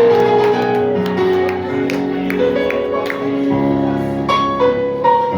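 Church worship band music led by keyboard: held chords with a moving melody line.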